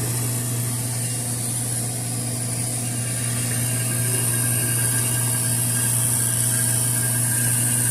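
Steady low mechanical hum with a high hiss over it, with no strokes or changes in pitch.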